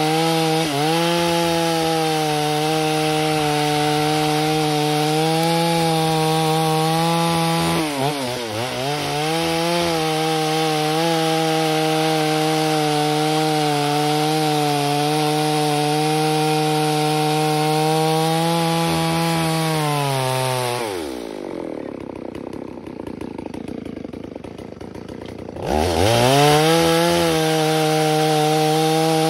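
Stihl 038 clone two-stroke chainsaw ripping dry, tough timber lengthwise, its engine held at steady high revs under load and dipping briefly about eight seconds in. Near the end it drops to idle for a few seconds, then revs back up and cuts again.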